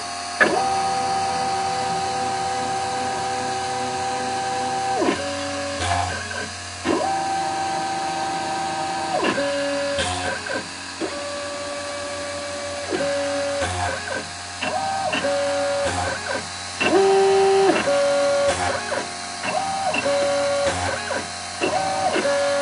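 Homemade mini CNC machine cutting a printed circuit board: the spindle runs with a steady hiss while the stepper motors whine at steady pitches that jump between a few notes every second or few as the axes start, stop and change speed, with short clicks between moves.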